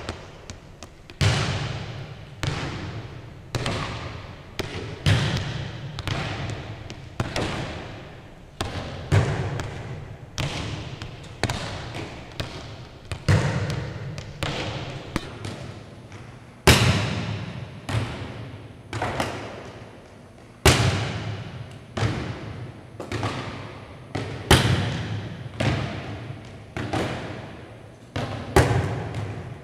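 Volleyballs being hit and bouncing on a hardwood gym floor: a steady run of sharp smacks, one or two a second, each echoing in the large hall, with two louder hits past the middle.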